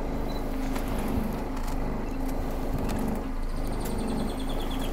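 Boat motor idling with a steady low hum. About three and a half seconds in, a bird's rapid ticking trill of about eight high ticks a second joins it.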